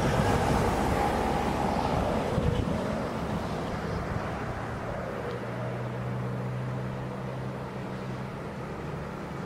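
Diesel truck engines running on the road. A louder rushing noise at the start fades over the first few seconds, and from about five seconds in a steady low engine hum of the stopped Hino 500 truck takes over.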